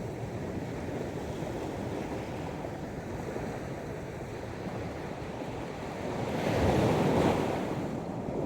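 Sea waves washing onto a beach in a steady rush, with one wave breaking louder about two-thirds of the way through and then fading.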